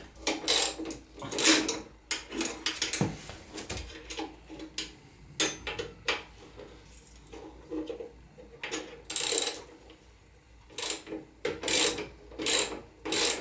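Socket ratchet clicking in short irregular bursts as it undoes the bolts of a motorcycle's luggage rail, with metallic knocks and scrapes of the tool between the bursts.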